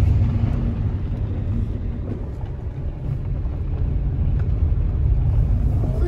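Steady low rumble of a car driving on a gravel road, heard from inside the cabin, with a few faint ticks.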